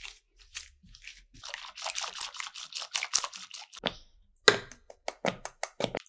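Close-miked food sounds of soft muffins being torn and eaten: a couple of seconds of dense crackling and rustling, then several short, sharp squishy sounds in the last second and a half.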